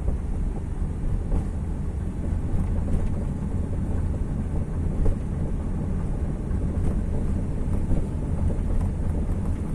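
Lifan X70 heard from inside the cabin on the move: a steady low road rumble with irregular knocks from a worn shock absorber, quite noisy, a fault the owner says calls for a new shock absorber.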